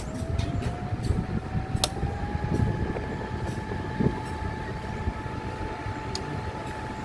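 Box fan running: a thin motor whine rises in pitch over the first couple of seconds as the fan comes up to speed, then holds steady over a low rush of air. A few light clicks in the first two seconds and one more near the end.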